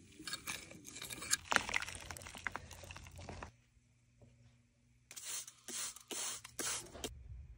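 Fingers scraping and raking through loose garden soil, a dense crackling rustle. After a short lull with a faint hum, a hand-pumped plastic spray bottle hisses out about four quick squirts of mist over potting soil.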